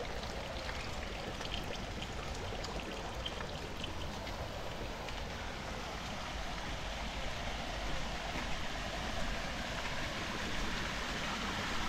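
Heavy rain falling steadily, a continuous rush of water with a few light drip ticks in the first seconds.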